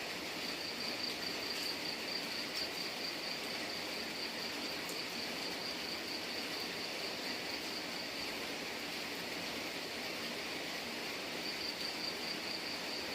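Steady rain hiss with an insect trilling over it, a fast-pulsing high tone that stops about eight and a half seconds in and comes back near the end.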